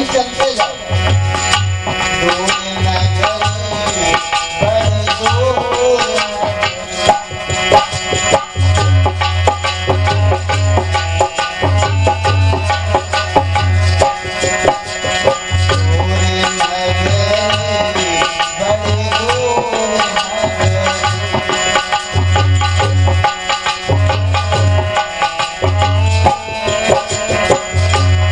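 Instrumental passage of a Hindu devotional bhajan: tabla drumming with repeated deep bass strokes under a sustained melody instrument, without singing.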